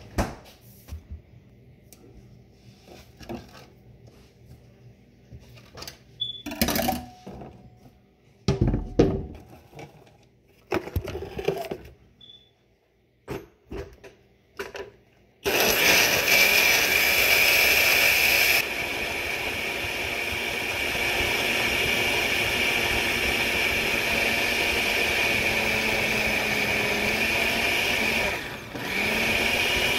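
A few scattered knocks and clatter, then about halfway a countertop blender with a glass jar starts up blending a milky liquid. It is loudest for its first few seconds, then runs steadily a little lower, dipping briefly near the end before running on.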